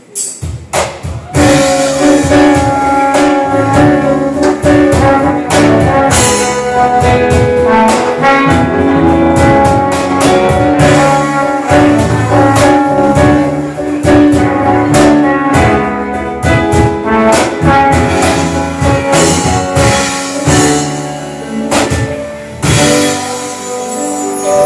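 Live band playing an instrumental passage: a trumpet carrying the tune over guitar, keyboard and drums. It starts with a few drum hits and comes in fully about a second in.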